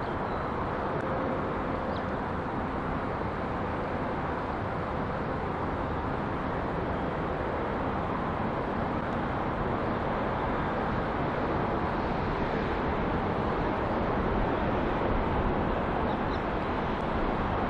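Diesel freight locomotive running as it approaches, a steady low rumble that grows a little louder as it draws near, hauling a train of empty aggregate hopper wagons.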